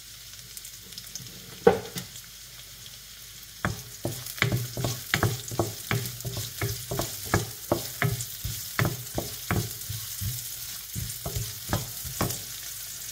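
Chopped onion and garlic sizzling in hot oil in a wok, with a wooden spoon knocking and scraping against the pan as it stirs, about three strokes a second from about four seconds in. A single sharper knock comes just under two seconds in.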